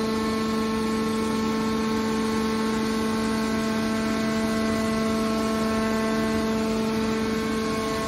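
Hydraulic power unit of a large scrap metal baler, its electric motor and pump running under load as the cylinder swings the lid closed. It makes a steady, unchanging whine with hum.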